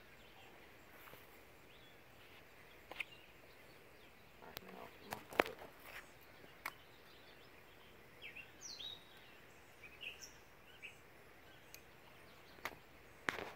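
Quiet outdoor ambience with a few short faint clicks and knocks scattered through it, and some brief high bird chirps about eight to ten seconds in.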